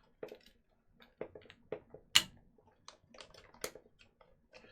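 Scattered light clicks and taps of small plastic items being handled as a tube of thermal paste is picked out, with two sharper clicks, one a little past two seconds in and one past three and a half.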